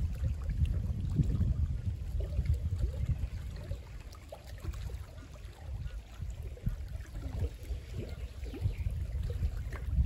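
Wind buffeting the microphone in uneven gusts, with small waves lapping and trickling against the shore rocks.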